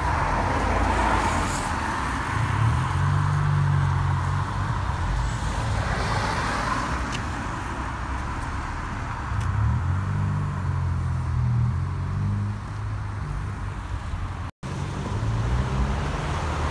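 Road traffic on a busy roundabout: a steady wash of tyre and engine noise that swells and eases as vehicles go by, with the low rumble of heavier engines coming and going.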